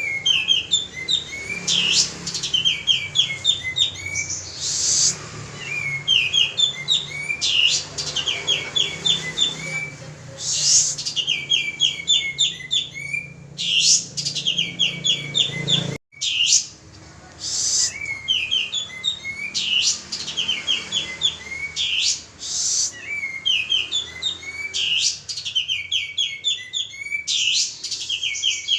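Male kapas tembak songbird singing loudly and continuously: phrase after phrase of fast runs of sharp, repeated high notes, each phrase a quick chattering series.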